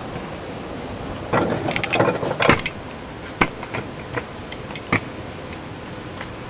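Stunt kick scooter rolling over pavement, its wheels and deck rattling, with a quick run of sharp clacks from about a second and a half to two and a half seconds in and then a few single knocks.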